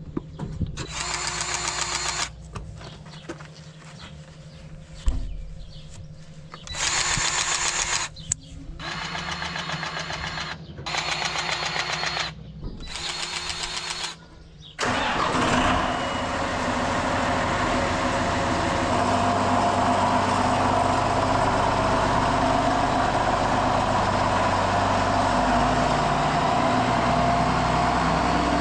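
A farm tractor's diesel engine is cranked by its starter in five short tries. It catches about 15 seconds in and settles into a steady idle.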